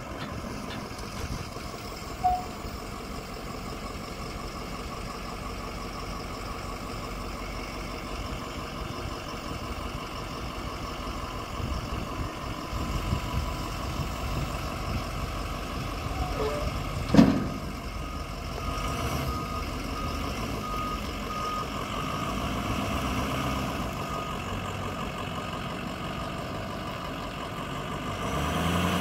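Ford F-450 flatbed dump truck's engine running as the truck drives. A little past the middle a single sharp thump is the loudest sound. Just after it, the truck's backup alarm gives a string of high beeps for several seconds.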